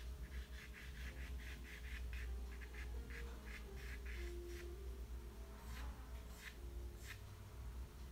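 Quiet background music: soft held notes over a quick, even ticking of about five beats a second, which thins to a few scattered ticks in the second half.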